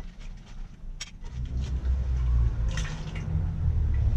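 Water draining and dripping from boiled crawfish and sausage in a metal strainer into the pot below, with light clicks from the metal. A low rumble comes in about a second in and is the loudest part.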